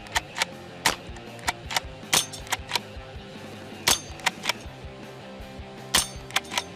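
Browning BL-22 lever-action .22 LR rifle fired four times, about one and a half seconds apart as the lever is cycled, over background music with a steady ticking beat.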